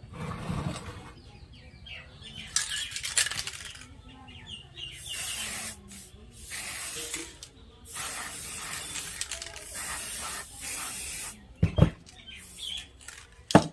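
Several bursts of hissing noise, the longest lasting about three seconds, followed near the end by two sharp knocks.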